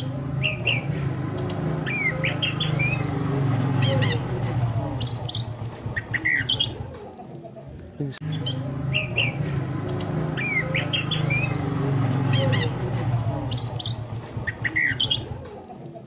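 Chestnut-capped thrush (anis kembang) song played as a lure recording: a quick run of varied whistles and chirps. The same sequence repeats about every eight seconds, with a short break before each repeat, over a low steady drone.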